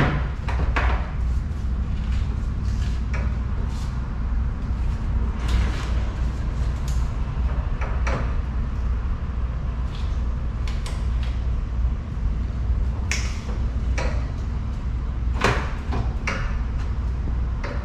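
Cooling fan-and-shroud assembly of a 2013 Chevrolet Equinox knocking, scraping and clicking irregularly against surrounding parts as it is pushed up and rotated into the engine bay from underneath, over a steady low hum.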